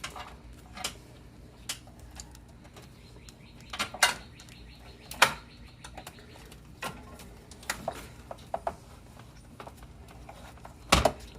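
Scattered light clicks and knocks from a battery cable and its plastic loom clip being handled and worked into place in an engine bay, with a louder knock near the end.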